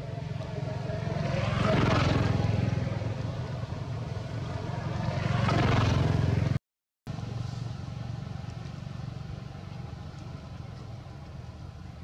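Motor vehicles passing on a nearby road: two pass-bys, each swelling up and fading away, about two and six seconds in, over a steady low engine hum. The sound cuts out briefly just after the second pass.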